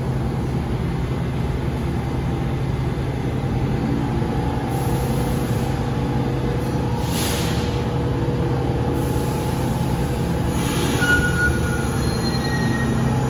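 R46 New York City subway train standing at the platform with a steady electrical hum. A hiss swells about five seconds in, and a few short, faint high squeals follow near the end as the train begins to move off.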